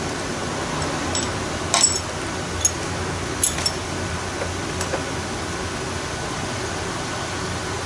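Small metal engine parts clinking together as they are handled and wiped with a rag, a few light, ringing clinks in the first five seconds, over the steady rush of an electric fan.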